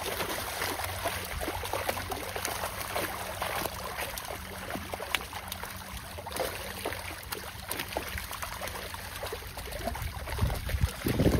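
Water trickling and splashing, with many small splashes and a loud low thump near the end.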